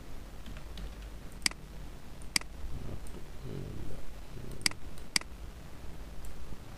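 Computer keyboard and mouse clicks: light typing with four sharp, separate clicks standing out.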